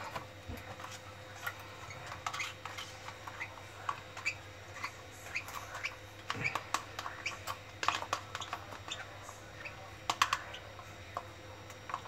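Baby lovebird chicks making short, squeaky food-begging chirps and squawks in a rapid, irregular series, a few a second, while being hand-fed.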